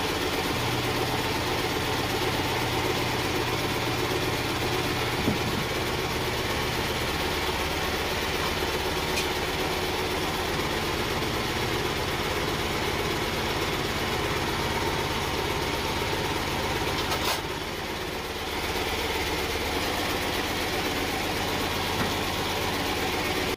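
An engine idling steadily with a low hum, with a single sharp knock about five seconds in.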